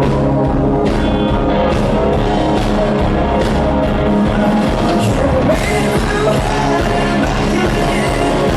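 Rock band playing live, with a lead vocal singing over the band.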